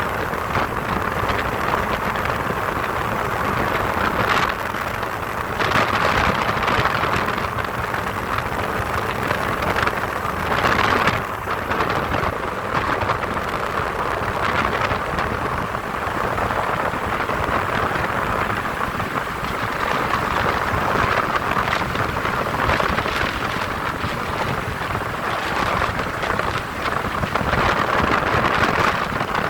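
Ultralight aircraft in flight in strong wind: a steady rushing of wind on the microphone over the engine, with brief louder gusts now and then.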